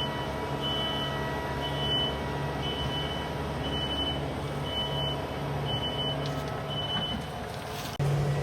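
A vehicle engine running steadily while its back-up alarm beeps about once a second, signalling that the machine is reversing.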